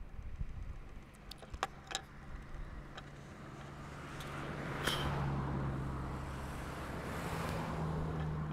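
A motor engine running steadily, getting louder about halfway through, with a few sharp clicks in the first couple of seconds.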